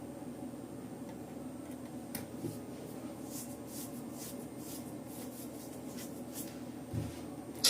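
Sparse soft clicks and brief rustles of hands at a computer desk over a steady low room hum, with a small thump near the end and a sharp click at the very end.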